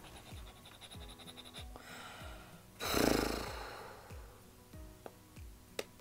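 Background music with a steady kick-drum beat. About halfway through, a woman draws a breath and lets out a long, loud sigh close to the microphone, fading over about a second.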